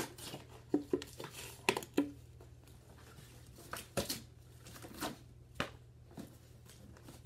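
Clear plastic and cardboard doll packaging being pulled and torn apart by hand, in scattered sharp crinkles and crackles.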